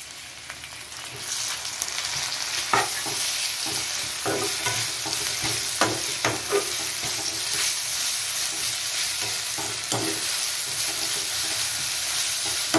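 Sliced onions and ginger-garlic paste sizzling in hot oil in a kadai, the sizzle growing louder about a second in as they are stirred. A steel spatula scrapes and knocks against the pan a few times.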